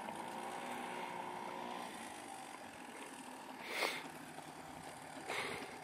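Small outboard motor on a jon boat running steadily at a distance, a faint even hum. Two brief hisses come about four and five and a half seconds in.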